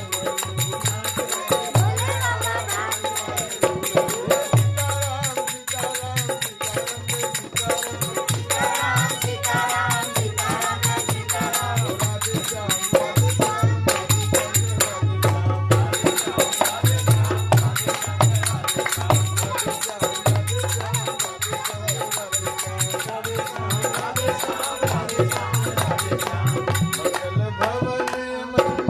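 Devotional bhajan music with a steady low drum beat and continuous jingling hand percussion, with a wavering melody line over it.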